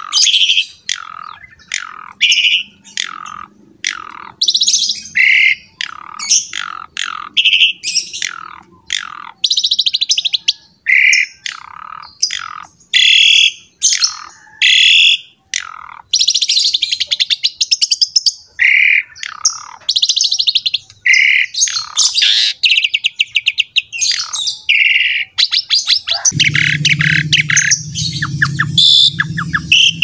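Javan pied starling (jalak suren) singing at length: a dense run of loud whistles, harsh chattering notes and fast rattling trills. About four seconds before the end, a low drone joins under the song.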